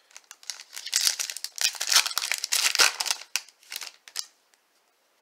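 Foil trading-card pack wrapper crinkling and tearing as it is ripped open by hand: a dense stretch of crackling that stops about four seconds in.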